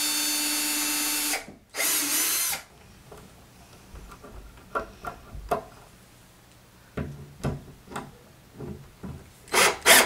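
Cordless drill driving screws into a wooden door to fasten a metal mounting plate: the motor whirs steadily for about a second and a half, then runs again briefly about two seconds in. Scattered clicks and knocks of handling follow, with a couple of short loud bursts near the end.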